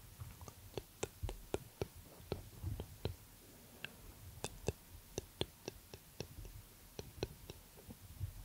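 Soft irregular clicks, several a second, with low rumbles of handling noise from hands and arms moving against a microphone held close to the body.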